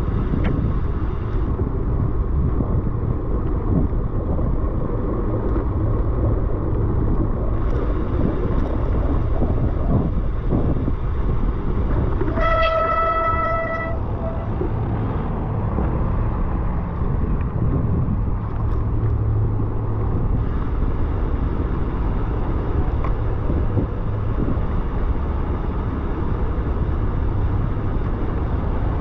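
Steady low rumble of wind and road noise on a slow bicycle ride over paving. About halfway through, a vehicle horn sounds once, a single steady toot of about a second and a half.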